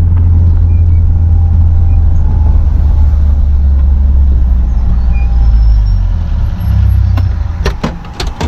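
Motor vehicle engine running with a loud, steady low rumble that fades away after about seven seconds, followed by a few sharp clicks and knocks near the end.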